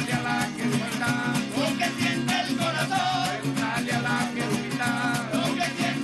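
Venezuelan parranda music from the Trujillo Andes: voices singing over strummed plucked strings and a drum, with a quick, steady percussive beat.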